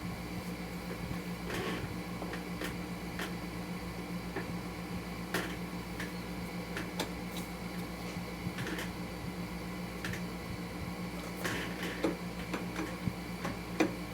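Scattered light metallic clicks and taps, about ten of them at uneven intervals, as a Kawasaki KLR650's alternator rotor is worked back onto the crankshaft over its Woodruff key. A steady low hum runs underneath.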